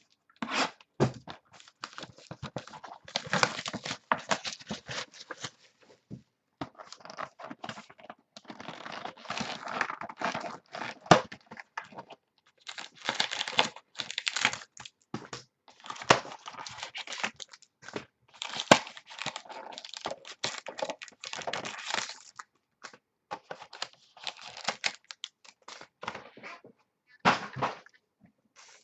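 Trading card packaging being torn open and crinkled, with wrappers and cards rustling in irregular stretches of a few seconds each, broken by brief pauses.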